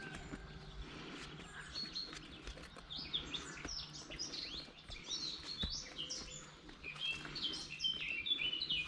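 Small songbirds chirping and twittering in quick, short notes. They begin about two seconds in and grow busier toward the end.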